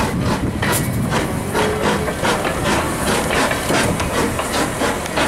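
Replica of Stephenson's Rocket steam locomotive working past at low speed: its exhaust chuffs in an even, quick beat over a steady hiss of steam.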